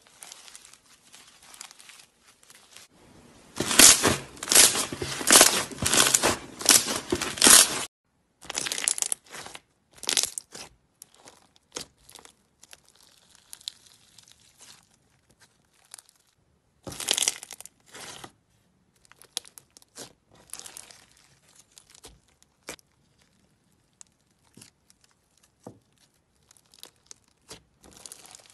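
Slime studded with foam beads being squeezed, pressed and stretched by hand, giving a sticky crackling and popping. There is a run of loud crackling about four to eight seconds in, then scattered, quieter crackles.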